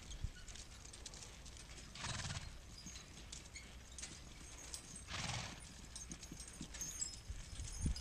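Six-horse hitch of Percheron draft horses pulling a plow, heard faintly: two short hissing bursts about two and five seconds in, over a low rumble, with a few low thumps near the end.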